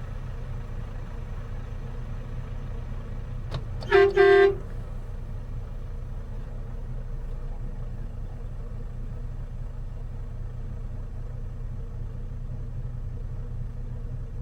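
Diesel truck engine idling steadily, with a vehicle horn giving two short honks about four seconds in, the second slightly longer.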